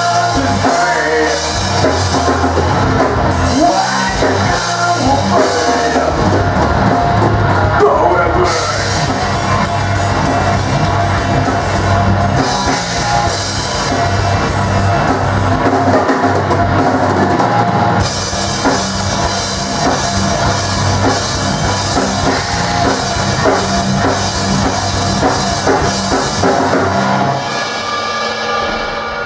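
Thrash metal band playing live: distorted electric guitars, bass guitar and a drum kit with cymbals, all at full volume. The song winds down near the end.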